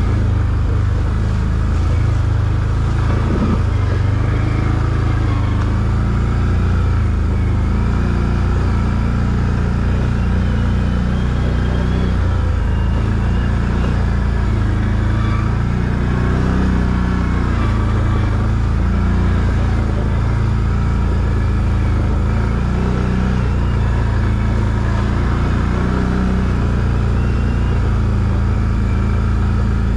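ATV engine running steadily at low trail speed, a constant low rumble that stays even throughout.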